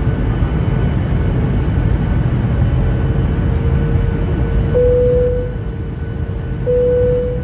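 A steady low rumble, with a single humming tone that comes in about three seconds in and grows louder twice near the end.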